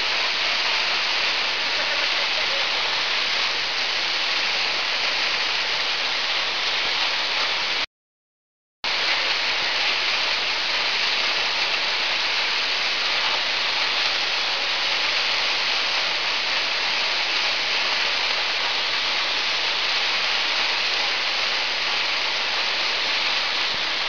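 Steady rush of a tall mountain waterfall pouring down rock steps. The sound cuts out completely for about a second about a third of the way through, then returns unchanged.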